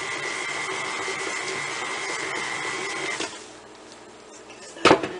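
KitchenAid tilt-head stand mixer running with its flat paddle beating butter, sugar and eggs, a steady whir with a high whine, switched off about three seconds in. A sharp knock follows near the end.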